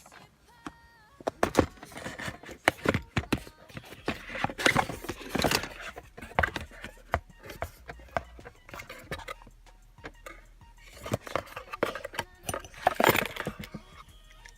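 Handling and unpacking of a steering wheel quick release and its metal hardware: packaging rustling and scraping, with irregular clicks, knocks and rattles of small metal parts, in two busier spells.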